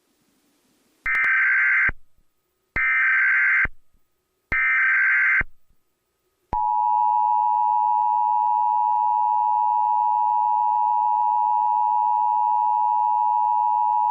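Emergency Alert System tones: three short bursts of SAME digital header data, each just under a second long, then the steady two-tone EAS attention signal, which begins about six and a half seconds in.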